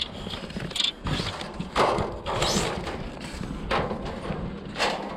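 Handling noise as a fibre-optic drop cable is worked through a tight gap: a few sharp knocks, and a scraping rustle about two seconds in.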